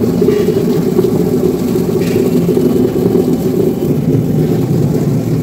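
Motor-driven drum potato peeler machine running steadily, a load of potatoes churning against its abrasive base inside the wet steel drum.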